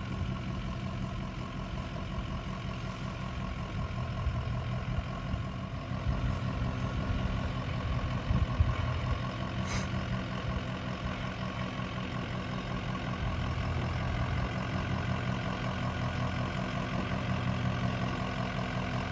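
Ford F-250's 6.0 Powerstroke turbo-diesel V8 running steadily at low revs as the truck crawls over rocks, with a single sharp click about halfway through.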